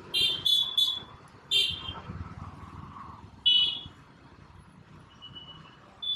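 Short high-pitched beeps in an uneven series: three quick ones, then two more spaced a couple of seconds apart, a faint one, and a longer beep starting near the end.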